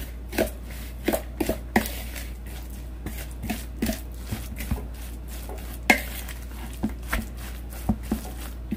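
Metal spoon stirring grated-potato pancake batter in a glass bowl, clinking against the glass irregularly, one or two knocks a second, the loudest about six seconds in.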